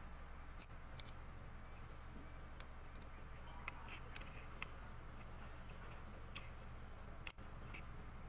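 Faint small metallic clicks and taps of a piston circlip and a small flat steel tool against an aluminium motorcycle piston as the clip is worked into the piston-pin bore. A handful are scattered through the seconds, the sharpest about seven seconds in, over a steady high-pitched drone and low hum.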